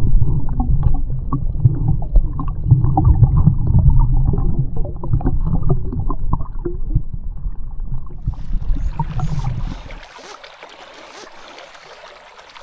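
Stream water heard with the microphone under water: a loud, muffled rumble and gurgle with nothing bright in it. About nine to ten seconds in, as the camera comes out of the water, the sound opens up and drops much quieter, leaving a soft stream hiss.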